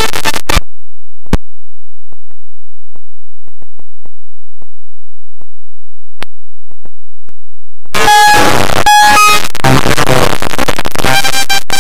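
Harsh, overdriven live-stream audio with held horn-like tones. It cuts out about half a second in, leaving a gap broken only by a few faint clicks, and returns about eight seconds in as the same loud, distorted noise.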